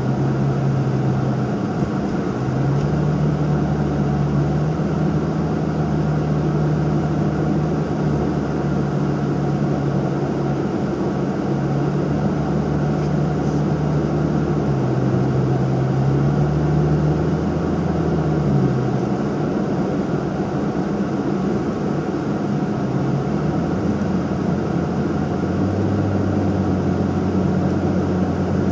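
Engine drone of a Nissan Fuga 350GT's 3.5-litre V6 with an aftermarket quad-outlet exhaust, heard from inside the cabin while driving, over steady tyre and road noise. The drone's pitch steps up and down every few seconds as engine speed changes with the throttle and road.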